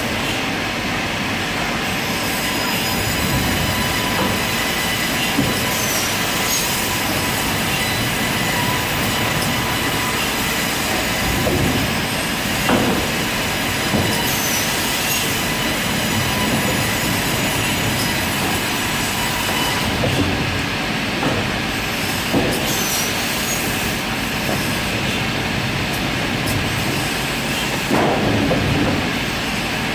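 Semiautomatic cross-cut saw running steadily, a continuous mechanical noise with high ringing tones, with a few short knocks scattered through it.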